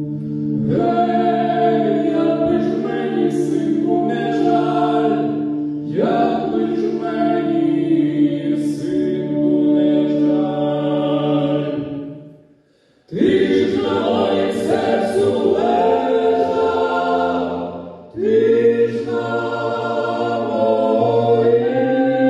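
A cappella choir singing a slow song in long sustained chords. The singing breaks off briefly about 13 seconds in and again about 18 seconds in.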